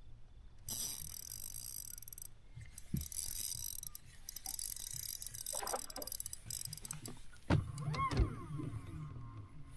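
Fishing reel winding in line in short spells of whirring, as a jerkbait is worked, with two low thumps on the boat deck about three-quarters of the way through.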